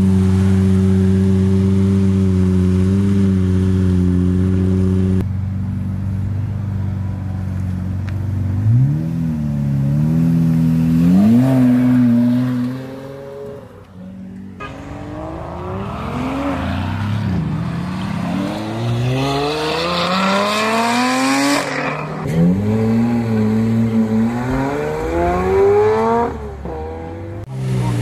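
Lamborghini Murciélago V12 engine idling steadily, then, after a cut, being revved a few times with the pitch rising and falling. In the second half it accelerates hard, the pitch climbing and dropping back at each gear change.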